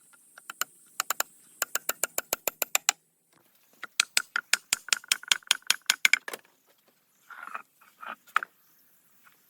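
A rapid series of sharp taps or knocks, about six or seven a second, in two runs with a short break between them, followed near the end by a few softer, shorter sounds.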